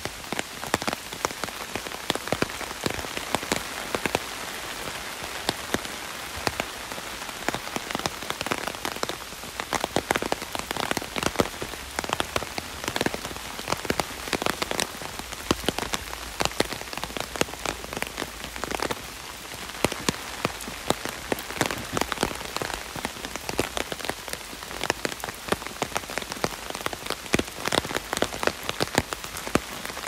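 Heavy rain falling on an umbrella overhead: a steady hiss of rain with many sharp, close drop strikes on the canopy.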